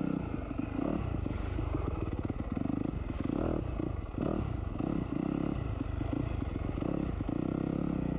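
Dirt bike engine running while being ridden along a trail, the revs rising and falling as the throttle opens and eases off several times.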